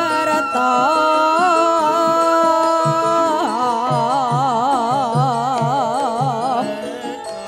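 Javanese gamelan music with a female sinden singing. About halfway through she holds a long note with wide vibrato, over low notes struck again and again.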